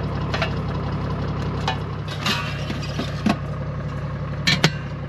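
4x4's engine idling steadily, with a handful of sharp clicks and knocks over it; the loudest two come close together near the end.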